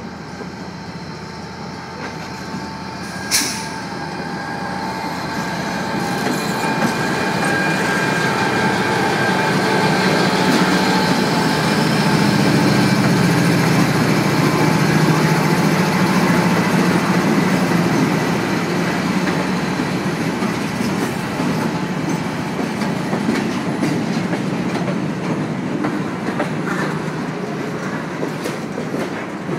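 A Canadian National freight train led by an EMD SD40-2 and a GE C44-9W diesel locomotive draws near and passes close. The low diesel drone swells as the locomotives go by, then freight cars roll past with the clickety-clack of wheels over rail joints. A single sharp crack sounds about three seconds in.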